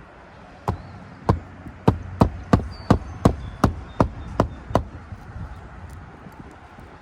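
Roofing nails being driven by hand with a roofing hatchet into a replacement asphalt shingle: about eleven sharp strikes, roughly three a second and getting a little quicker, which then stop before the end.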